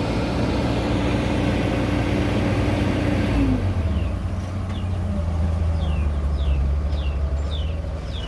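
Excavator's diesel engine running steadily, its higher hum dropping in pitch about three and a half seconds in. From about four seconds, short, high, falling chirps repeat every half second or so over the engine.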